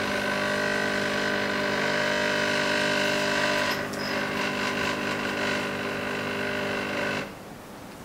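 Gevi GECME400BA-U 20-bar espresso machine's pump humming steadily as it brews, dipping slightly about four seconds in. It cuts off suddenly about seven seconds in as the machine stops by itself at the end of its automatic two-cup dose.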